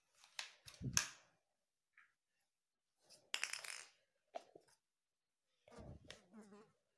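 Plastic bottle caps being handled: scattered clicks and rustles in a few short bursts, with a soft knock about a second in and another near the end.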